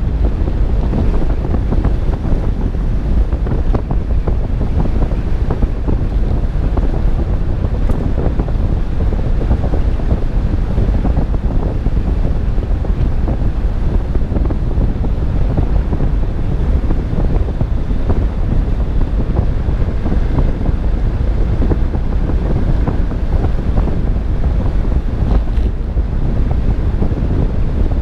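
Steady wind rumble on the microphone of a GoPro mounted on a moving car, a dense low noise that does not let up.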